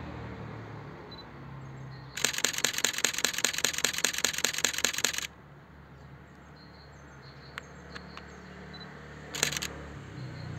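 Canon EOS 250D DSLR shutter firing a continuous burst of about fifteen frames at roughly five a second for about three seconds, followed near the end by one short shutter release.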